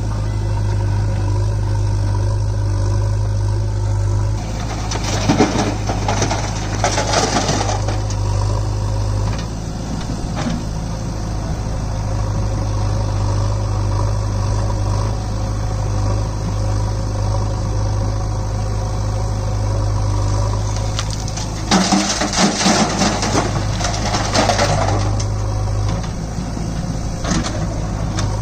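Diesel engines of a farm tractor and a JCB backhoe loader running steadily. Twice, about five seconds in and again near the end, stones and rubble crash for a few seconds as the loader's bucket tips them into the tractor's trolley.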